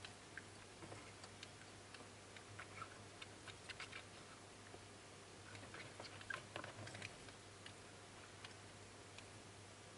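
Faint, scattered clicks and scratches from a crowd of Brongersma's toads moving about on gravelly sand and a clay dish, busiest around three to four seconds in and again around six to seven seconds in, over a faint steady low hum.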